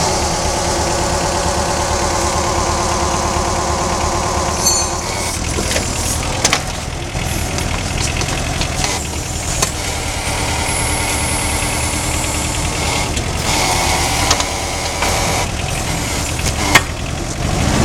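Main pump running with an abnormal noise: a steady machine rumble with a whining tone for the first few seconds, then rougher, with occasional sharp knocks.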